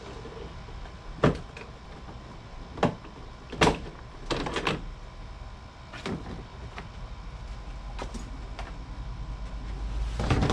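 Plastic push clips of a tailgate's interior trim panel snapping loose as the panel is pried off, as a series of sharp single snaps with rustling of the panel between them.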